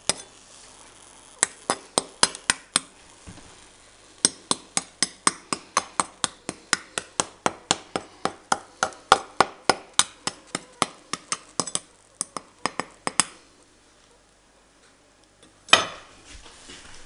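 A knife tapped rapidly on hard, crisp pork crackling, about four to five sharp glassy clicks a second, which stop a few seconds before the end. The hard, glassy tap is the test showing that the crackling has crisped properly. Near the end there is one louder knock.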